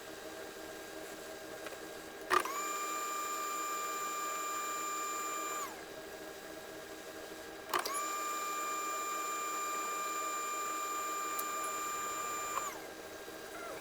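A steady high-pitched whine with overtones, twice: it starts suddenly with a click about two seconds in and runs for about three seconds, then comes again for about five seconds, each time dropping slightly in pitch as it stops. A steady low hum runs underneath.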